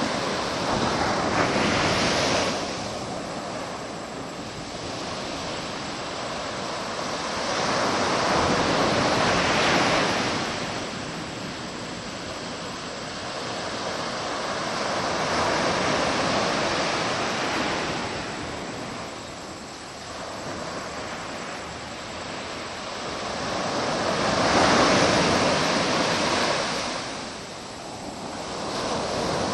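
Sea waves breaking on a beach: a steady wash of surf that swells and fades four times, every seven to eight seconds.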